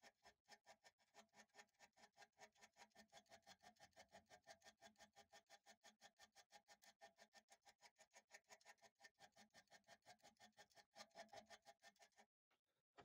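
Small file rasping rapidly back and forth across the steel cutting edge of a wood drill bit, about five strokes a second, faint. The strokes stop about a second before the end.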